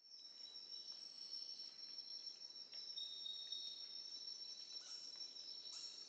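Faint chorus of insects chirring, a steady high-pitched trill held on two tones.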